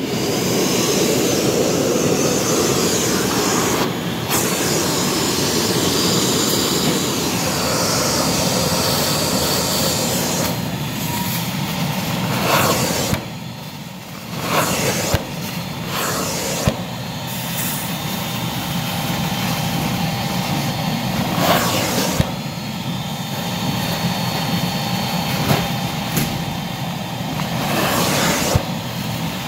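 Carpet-cleaning extraction wand spraying and vacuuming a carpet: a loud, steady rush of suction and spray that starts suddenly, drops back briefly about halfway through and a few more times as the wand is worked.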